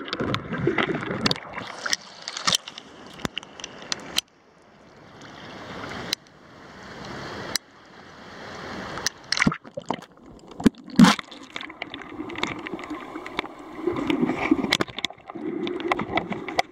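Water sloshing and gurgling around a handheld camera on a selfie stick as it moves through shallow seawater and breaks the surface, with many sharp clicks and knocks. A quieter stretch of rising hiss in the middle breaks off suddenly.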